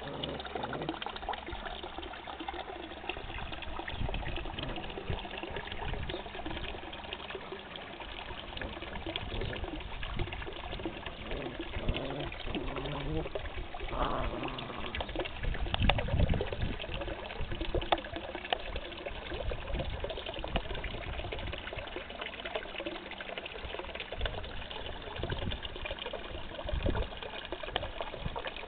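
Steady trickle of running water in a garden fish pond.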